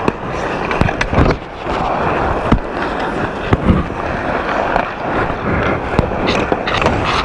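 Ice hockey skate blades scraping and carving on the ice, picked up close from a camera inside a goalie mask, with several sharp knocks of sticks and puck.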